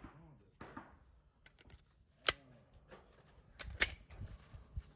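A few sharp metallic clicks and knocks from a pistol and magazine being handled and loaded, the two loudest about a second and a half apart, with fainter clicks between.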